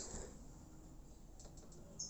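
A few faint clicks of plastic buttons being pressed, about one and a half seconds in, as someone tries to switch on a speaker that stays off.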